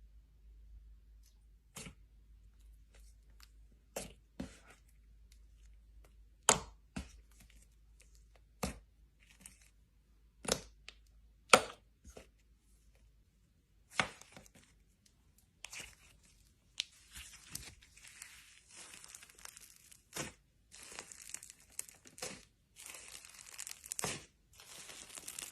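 Slime being squished and stretched by hand: sharp wet pops and clicks one to two seconds apart, turning into a denser stretch of crackling about halfway through.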